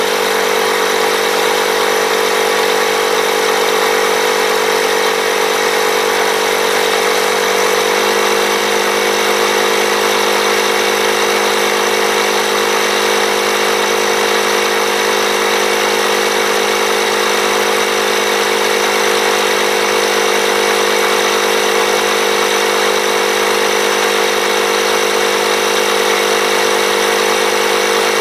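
Black & Decker BDINF20C 20V cordless inflator's compressor running steadily on battery power, pumping air into a riding mower tire. Its tone shifts slightly about eight seconds in.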